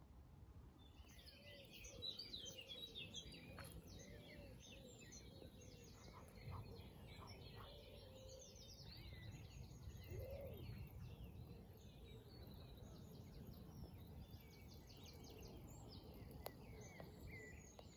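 Faint songbird singing: several birds chirping and warbling in an overlapping chorus, starting about a second in, over a low steady background noise.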